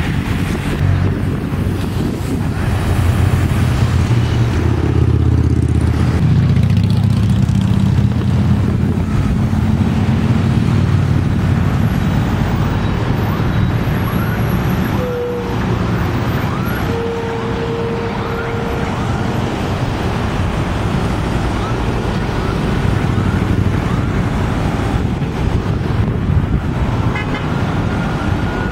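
Convoy of cars and pickup trucks passing close by on a highway: engines and tyres, loudest in the first half. A car horn toots twice around the middle, and a siren starts up near the end.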